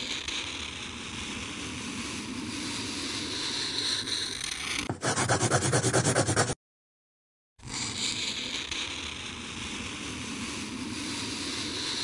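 Scribbling sound effect of a pencil drawing on paper: a steady scratchy rub, then about five seconds in a burst of quick, even back-and-forth strokes. It cuts off dead for about a second, then the scratching starts again.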